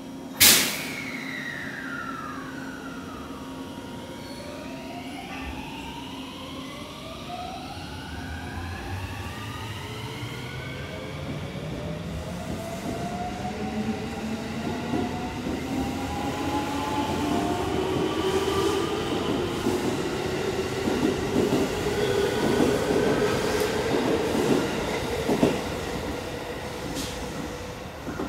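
JR West 223 series 2000 electric train with a Mitsubishi IGBT three-level VVVF inverter pulling away from a station. The inverter whine climbs in several rising tones, the so-called tornado type, and grows louder with wheel and rail noise as the cars accelerate past, then fades near the end. A sudden loud sharp noise comes about half a second in.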